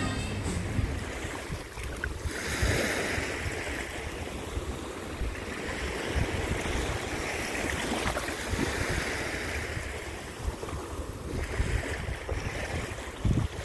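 Small sea waves washing in over wet sand at the shoreline, the wash swelling and fading every few seconds, with wind rumbling on the microphone.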